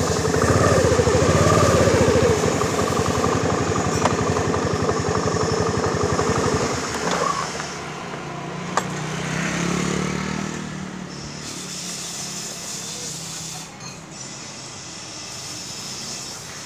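Motorcycle engine idling close to the microphone, switched off about seven seconds in; quieter street noise follows.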